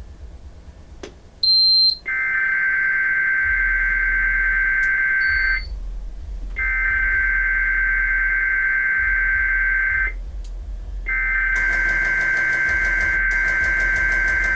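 NOAA Weather Radio test signal: a short high beep about a second and a half in, then three long bursts of warbling digital data tones (the SAME alert header), each about three and a half seconds with about a second's pause between them.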